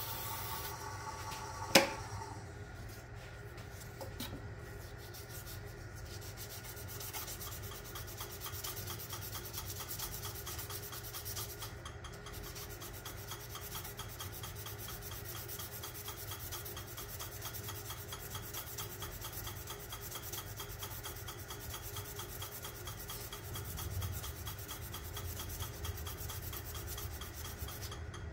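A sharp click about two seconds in, then a steady rubbing sound with a fine, fast even texture as a hand-held abrasive is pressed against a wooden pen blank spinning on a wood lathe.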